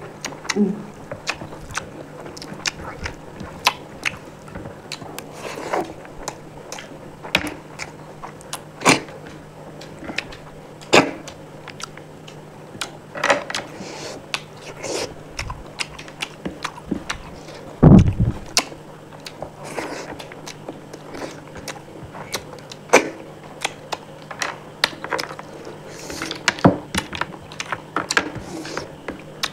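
A person eating: irregular wet chewing, smacking and small mouth clicks, with a faint steady low hum underneath. One louder low thump comes about two-thirds of the way through.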